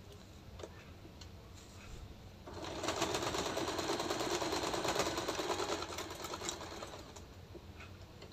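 Usha Janome sewing machine stitching in one run of about four seconds, starting about two and a half seconds in and slowing to a stop near seven seconds, with faint cloth-handling clicks before it. The run sews a reinforcing seam at the salwar's bottom, gone over two or three times to make it strong.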